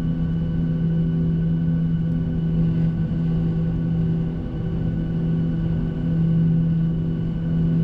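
Boeing 737-800's CFM56-7B jet engines running at low taxi power, heard from inside the cabin: a steady low hum with a few fainter higher tones over a rumble.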